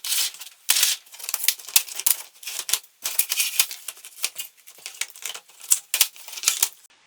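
Slot car track pieces and a 3D-printed connector being handled and pulled apart: a quick, uneven run of plastic clicks and rattles.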